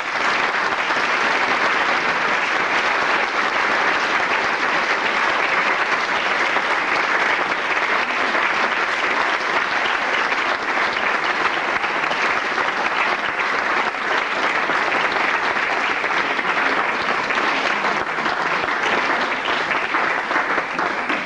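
An audience applauding, a steady hall full of clapping hands that keeps up without a break and only dies away at the very end.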